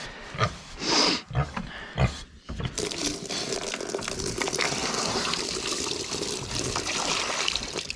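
A pig grunting a few times, then water poured in a steady stream from a pail into the pig's water pan for about five seconds.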